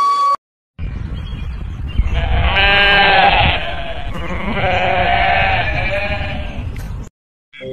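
Alpine ibex bleating: two drawn-out, goat-like calls over a low rumble, the sound cutting off suddenly near the end.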